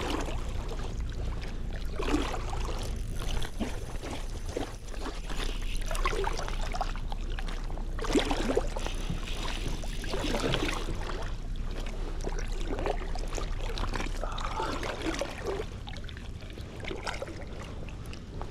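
Water splashing and lapping irregularly around a belly boat on a river, over a steady low rumble.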